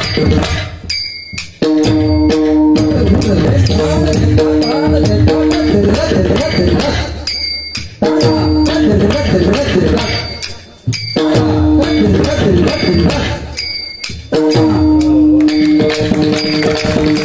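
Pakhawaj drum played in a fast run of strokes over a repeating lehra, a short melody looping about every six and a half seconds.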